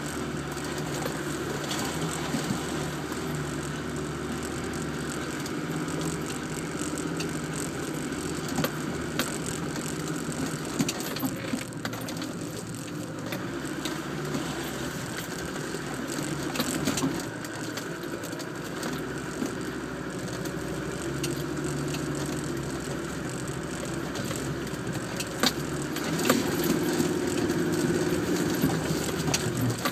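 Land Rover Defender engine running as the truck drives over rough, rutted dirt tracks, heard from inside the cab, with frequent knocks and rattles from the body over the bumps. The engine gets louder near the end as the nose pitches up a steep bank.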